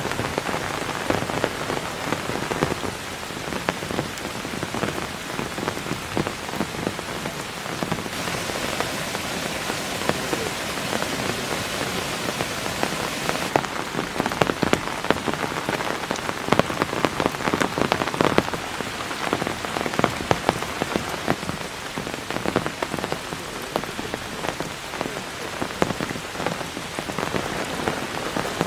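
Heavy rain falling steadily, with a dense patter of drops striking a nearby surface; the tone of the rain shifts slightly twice along the way.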